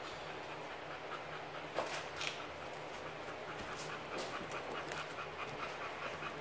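American Bully mother dog panting steadily and rhythmically with her mouth open. A few light knocks come about two seconds in.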